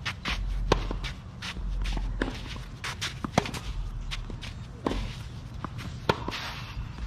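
Footsteps and short sneaker squeaks on a hard tennis court, with scattered sharp knocks over a low rumble.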